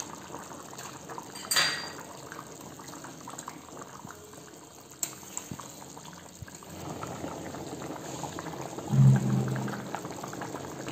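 Thick potato curry gravy bubbling and simmering in a metal kadai, with a few light clicks of a spatula; the bubbling grows louder about two-thirds of the way in. A brief low thump is the loudest sound, about a second before the end.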